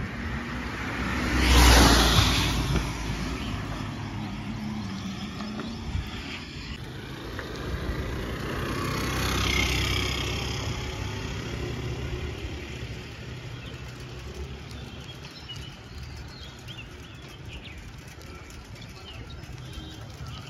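Road vehicles passing close by on a street. One loud pass rises and fades about two seconds in, and a second, softer one follows around nine to ten seconds. Between and after them is a steady low hum of distant traffic.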